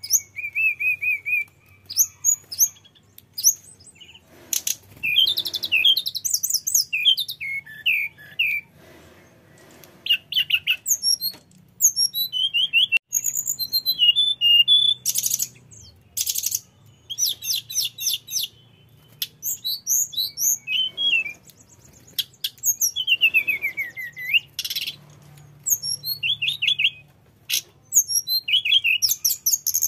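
Hill blue flycatcher singing a long, varied song: many short high whistled and trilled phrases in quick succession, broken by brief pauses, full of imitated fill-in phrases.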